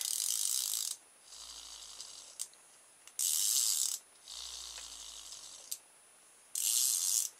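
Pull-string clockwork motor of a vibrating cat toy, out of its casing, wound three times. Each time the cord is pulled out with a short, loud ratcheting rasp, then the spring reels it back in with a quieter whirr over a low hum.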